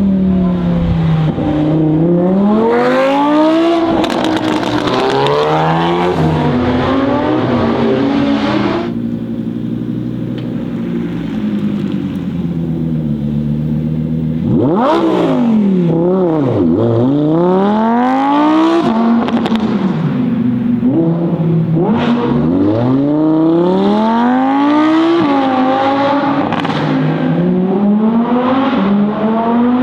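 Audi R8 V10 Performance's 5.2-litre V10 with a Capristo exhaust, revving up hard with the pitch dropping at each gear change. There is a steadier, quieter stretch in the middle, then it revs up and down again repeatedly.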